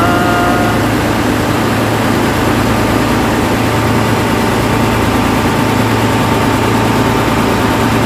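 Engine running at a steady pace, a loud continuous drone with a constant low hum. A brief wavering tone sounds over it at the very start.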